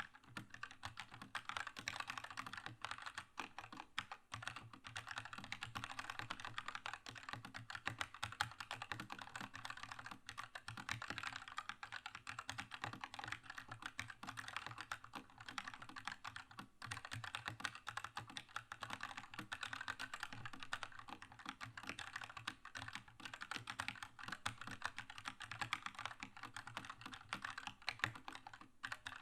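Fast continuous typing on a Keychron K2 mechanical keyboard with red linear switches: a dense run of key clacks with only brief pauses, and the occasional louder stroke.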